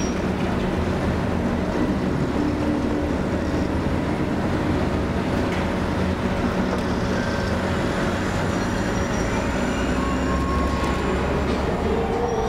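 Subway train running on the track: a steady rumble, with a faint whine that rises partway through.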